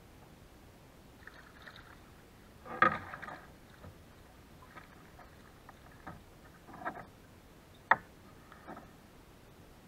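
Short, scattered knocks and scrapes of fishing gear on a kayak as a pike is brought in and netted. There is a louder burst about three seconds in and a sharp click near eight seconds.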